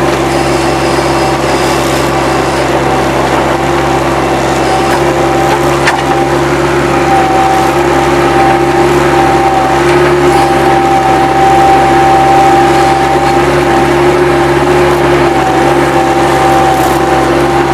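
Bobcat 763 skid-steer loader's diesel engine running steadily at working revs, with a steady whine over it, growing a little louder a little past the middle.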